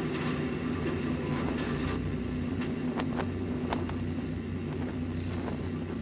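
A steady engine drone with a constant low hum, broken by scattered sharp clicks at irregular intervals.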